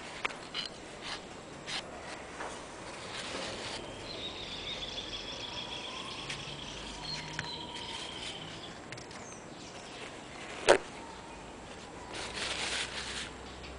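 Light clicks and taps of a screwdriver working a brake master cylinder, with one sharp knock about eleven seconds in and paper rustling near the end. A faint, high, wavering call sounds behind it for a few seconds in the middle.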